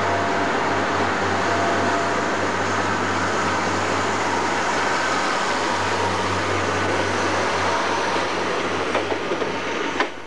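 Class 142 Pacer diesel multiple unit passing close by, its diesel engine and rail-wheel noise steady and loud. A few clicks come near the end, then a sharp click, and the sound drops away abruptly.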